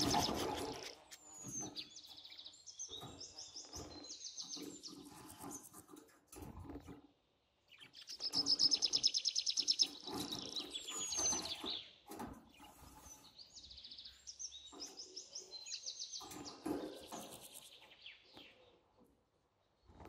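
Budgerigar warbling and chirping in fast runs of high trilled notes, with water splashing and wing fluttering as it bathes in a shallow tub of water. The chirp runs are loudest about eight to ten seconds in.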